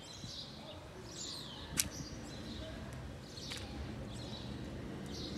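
Small birds chirping in short repeated calls, with one sharp click about two seconds in.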